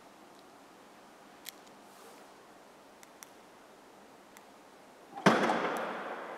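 Mercedes S-Class trunk lid opened from the key fob: a few faint clicks, then about five seconds in a sudden loud clunk as the latch releases, followed by a sound that fades away as the lid swings up.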